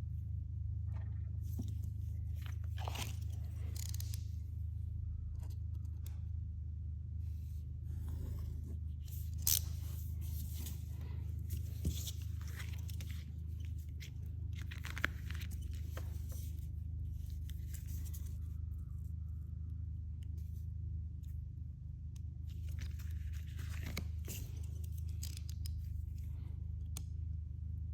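Plastic window tint film crinkling and scraping in intermittent bouts, with a few sharp clicks, over a steady low hum.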